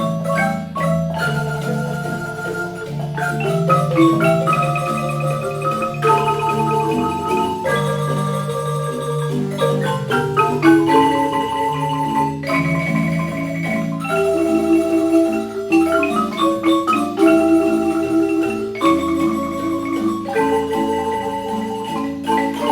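A marimba ensemble playing a melody in rolled, held notes over a bass line.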